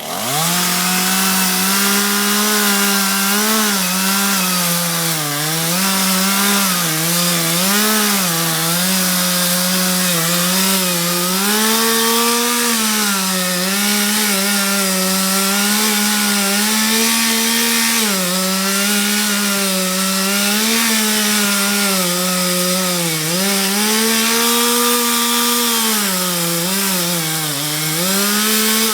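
Chainsaw running at high revs and cutting through a tree, its pitch repeatedly dropping and recovering as the chain loads in the wood.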